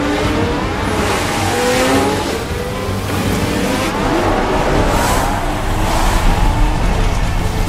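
A pack of 1970s Formula One cars accelerating away from the start on a wet track: several engines revving at once, their pitch sweeping up and down through the gears, over a steady hiss of tyre spray.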